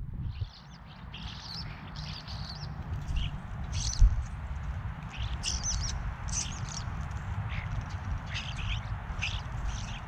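European starlings calling repeatedly: many short, scratchy chirps and whistles. A steady low rumble runs underneath, with a single dull thump about four seconds in.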